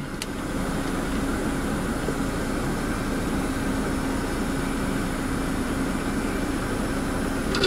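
Steady low hum and hiss of a car's cabin with the car standing still, an even background with no sharp events.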